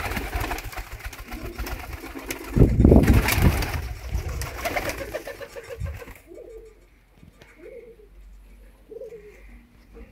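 Transylvanian double-crested tumbler pigeons cooing repeatedly. A loud flurry of flapping wings comes about three seconds in. In the second half it is quieter and single coos stand out.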